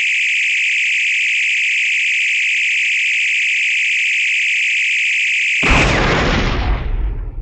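Star Trek sound effect: a steady high-pitched electronic buzzing hiss that cuts off about five and a half seconds in with a sudden loud blast and a deep rumble that fades over the next two seconds.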